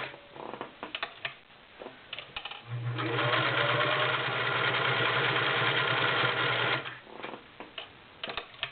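Singer Model 348 all-metal, belt-driven sewing machine stitching through five layers of denim. It runs steadily for about four seconds, pulling the heavy fabric through without labouring, with scattered clicks and knocks before it starts and after it stops.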